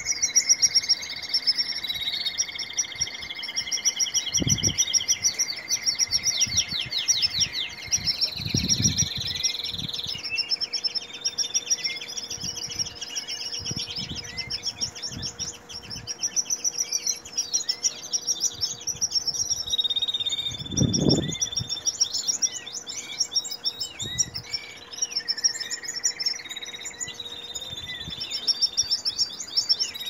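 Many canaries singing at once: overlapping rolling trills and long held whistles that never stop. A few dull low thumps come through, the clearest about two-thirds of the way in.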